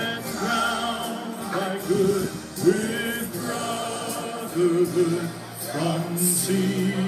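A song being sung with musical accompaniment.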